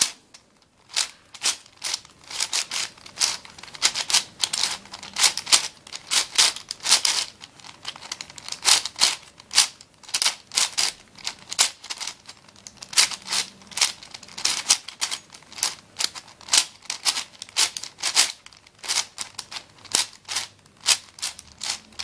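A YJ 5x5 speed cube being scrambled by hand: its plastic layers are turned over and over, giving a quick, irregular run of clicks and clacks.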